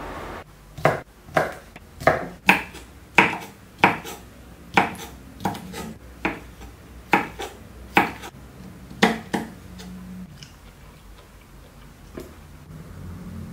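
Kitchen knife chopping on a cutting board: about a dozen slow, uneven strokes, then it stops.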